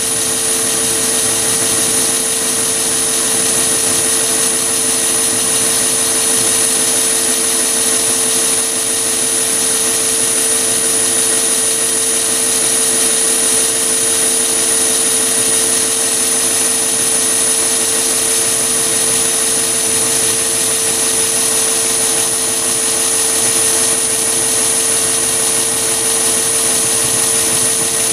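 Mini lathe running at about 615 rpm, its motor and drive giving a steady whine of unchanging pitch, while a 4 mm four-flute end mill in the chuck mills a slot in a workpiece fed into it on the carriage.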